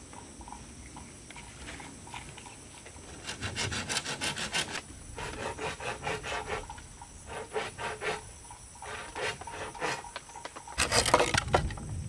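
Wood being worked by hand with a rasping tool in quick repeated strokes. The strokes come in several short runs, and the loudest, harshest run comes near the end.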